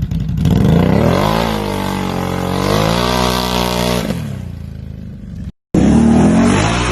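Off-road vehicle engine revving: the pitch climbs about a second in, holds high, and drops back around four seconds in. After a short break in the sound, an engine revs again near the end.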